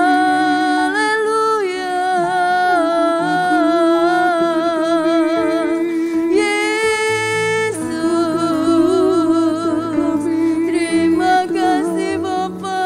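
A woman singing a slow worship song into a microphone, her long held notes wavering with vibrato, over sustained instrumental chords.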